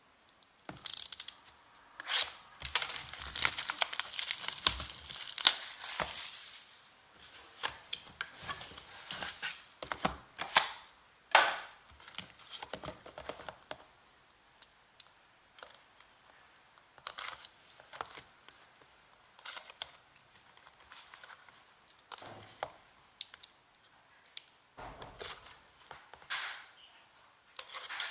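Plastic shrink-wrap being torn off trading-card boxes and packs being handled: a long stretch of rough tearing and crinkling from about two to six seconds in, then scattered crinkles, rustles and clicks of wrappers and cardboard.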